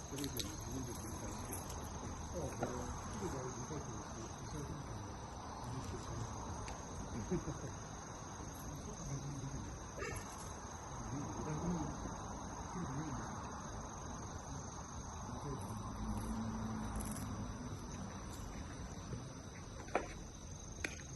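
Steady chorus of insects, crickets trilling high and unbroken, over faint low rustling.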